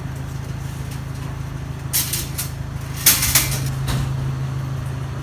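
A vehicle engine idling steadily, with short sharp clatters about two seconds in and again a second later.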